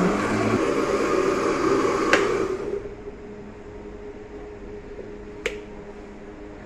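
Electric blender running for about three seconds, grinding soaked tamarind and dried-plum pulp with sugar and water, then switched off with a click and winding down. A single sharp knock comes near the end.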